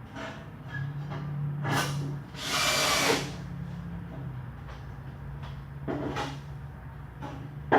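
Power drill driving screws into pressure-treated 2x4 wood framing, running in short bursts with the longest and loudest about two and a half seconds in. A few knocks, the sharpest at the very end.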